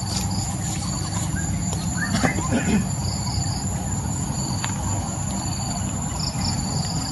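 Insects chirping in short, repeated high pulses over a steady rushing background noise, with one brief call about two seconds in.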